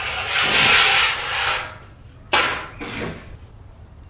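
A standing seam metal panel sliding and scraping across the snap table's metal bed, then two short knocks as it is handled and set in place.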